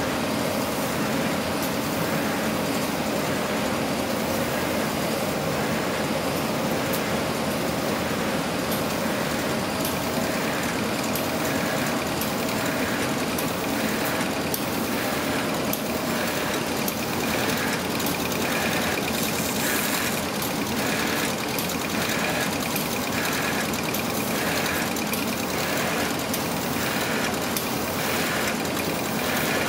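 An Octans 126WS bag-making machine running: a steady mechanical hum and rattle of rollers and drive. From about halfway through, a faint regular beat repeats roughly once a second, the machine's working cycle.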